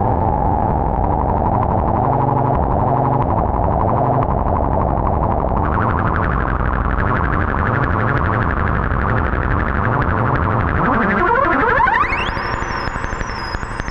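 Ciat Lonbarde Peterlin analog synthesizer, run through the TX-6 mixer's reverb, playing a dense, rapidly fluttering noise drone over a low rumble as its knobs are turned. About eleven seconds in, a pitch sweeps quickly upward, and after it high, stepping chirps enter.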